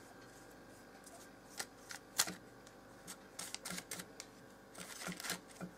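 Faint, scattered light taps and soft rustles of a pastry brush dabbing egg yolk onto sausages wrapped in puff pastry, with the parchment paper on the baking tray rustling under it.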